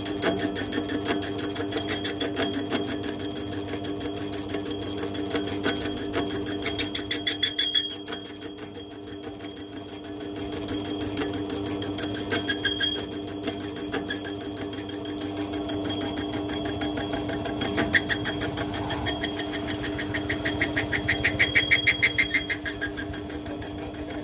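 Small benchtop metal lathe running: a steady motor and gear whine with a fast, even ticking. It swells louder about seven seconds in and again near twenty-one seconds, with a quieter dip around eight to ten seconds.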